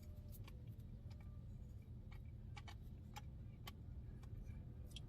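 Faint steady low hum of a parked car's idling engine, with a scattering of small sharp clicks and ticks from handling a plastic drink cup.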